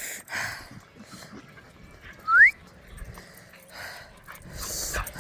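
A dog gives one short, rising whine about two seconds in.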